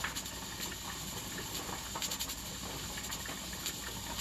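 Pressure canner holding pressure during timed processing: a steady low hiss and bubbling with a few faint ticks.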